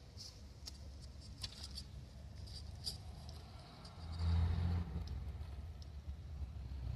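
Radio-controlled rock crawler's electric motor and drivetrain running low as the truck climbs over rock, with scattered small clicks. A louder low rumble comes about four seconds in.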